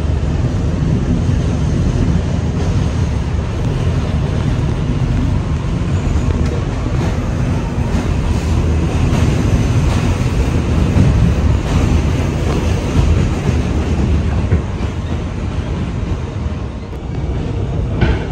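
Kawasaki R211A subway train running between stations: a loud, steady rumble of wheels on rail with a few faint clicks from the track.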